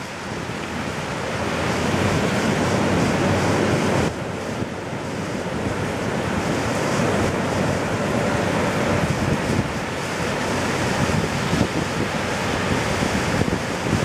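Ocean waves breaking and surf washing up a beach, a steady rushing noise, with wind buffeting the microphone.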